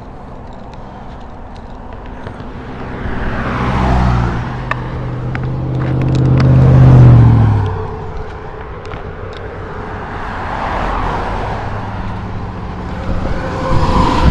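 Road traffic passing close by on a highway: several vehicles go by one after another. The loudest comes about seven seconds in, a low engine drone that drops in pitch as it passes.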